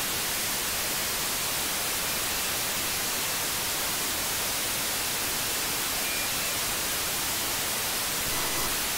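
Steady hiss of open-squelch narrowband FM static from a HackRF software-defined radio receiver tuned near 5.86 GHz, with no signal on the channel.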